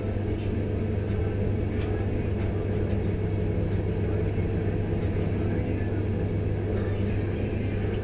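Pillar drill running with a steady low motor hum while its bit is fed down into a metal tube.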